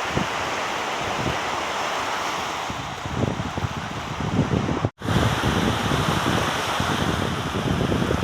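Wind buffeting the microphone in gusts over the steady rush of the sea. The sound cuts out completely for an instant about halfway through.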